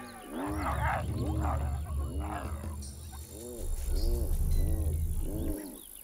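Spotted hyenas at a kill: a run of repeated rising-and-falling calls, about two a second, over a deep growling rumble that stops about a second before the end.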